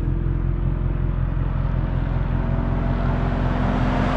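Car approaching along the road, its engine sound growing steadily louder as it nears.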